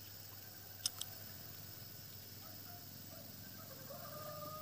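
Quiet outdoor ambience with a steady high hiss, broken by two sharp clicks in quick succession about a second in. A steady pitched tone starts near the end.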